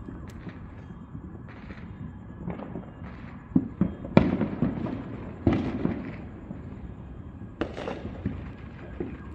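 Fireworks going off: a string of irregular bangs and crackles, the loudest about four seconds in, each trailing off over about a second.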